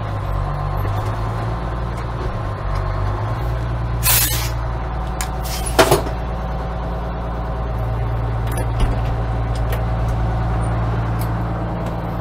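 Engine of a 1982 American LaFrance fire engine running as the rig creeps along and pulls up. Two short hisses of air about four and six seconds in fit its air brakes being applied and released.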